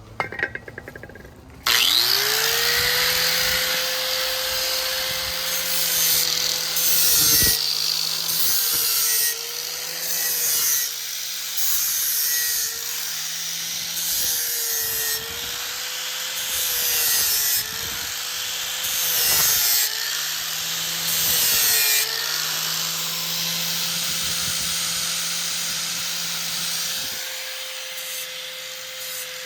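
Electric sander motor starting up about two seconds in and running, with the steel edge of a folding survival shovel pressed against it in repeated grinding passes; the motor's hum dips in pitch with each pass under load. Near the end it runs with little grinding.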